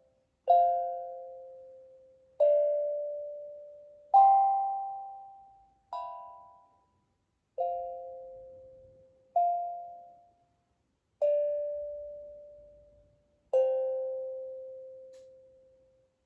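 Steel tongue drum played slowly, one note at a time: eight single strikes about two seconds apart, each ringing out and fading before the next. The last note dies away near the end.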